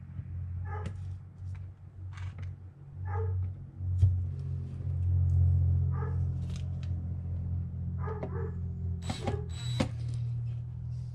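Two short bursts of a cordless drill near the end, driving a screw through a wooden plaque into a deer skull, over a steady low hum.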